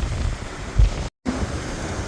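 River water rushing as a steady noise, with wind buffeting the microphone in low rumbles. The sound drops out completely for a split second a little past halfway.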